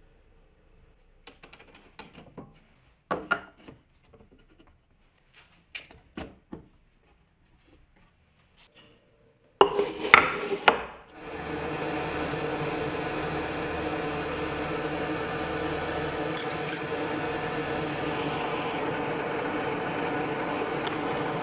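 Clicks and knocks of a Forstner bit being fitted into a drill press and a wooden board being set on its table, with a few loud knocks about ten seconds in. Then the drill press and its dust extraction start up and run at a steady hum.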